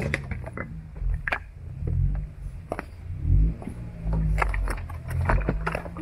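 Jeep Gladiator engine revving up and down in several swells as the truck crawls slowly over rock ledges, with sharp clicks and cracks of stones shifting under the tyres.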